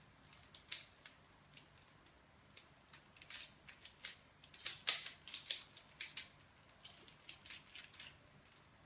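Plastic clicks and snaps of a Rubik's mirror cube as its layers are turned by hand during a solve. The clicks come irregularly, in quick runs, busiest around the middle.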